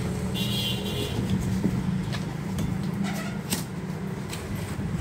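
Cardboard box flaps and foam packing being handled, with a brief scrape about half a second in and a few light knocks, over a steady low background rumble.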